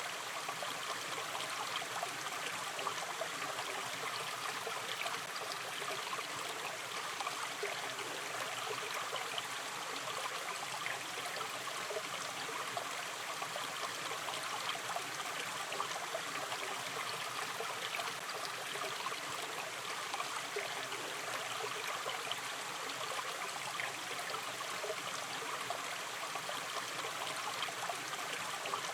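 Shallow river stream flowing gently: a steady rush of water with many small bubbling trickles, unchanging throughout.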